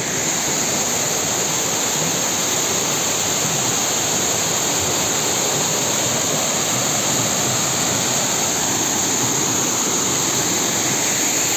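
Water pouring down a small rocky waterfall, a steady loud rush of falling and splashing water.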